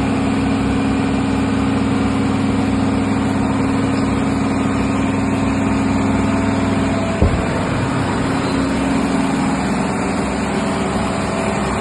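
CNC machine tool running with a steady, loud mechanical hum of several low tones. About seven seconds in there is a short knock, after which the deepest part of the hum drops away and the tone changes, as the machine shifts to another step of its cycle.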